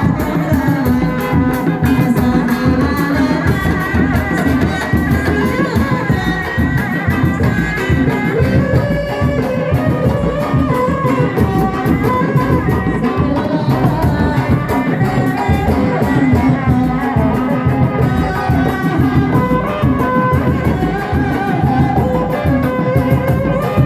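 Kuda lumping accompaniment music: drums and other instruments keep a steady rhythm under a singing voice.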